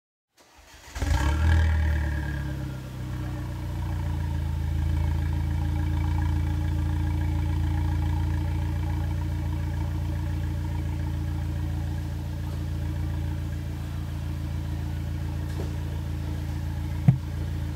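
Exhaust of an Alfa Romeo Giulietta's 1.4-litre turbocharged four-cylinder engine through a UNICORSE aftermarket rear muffler and centre pipe, idling. It is louder and higher for the first couple of seconds, then settles into a steady idle, with a single short click near the end.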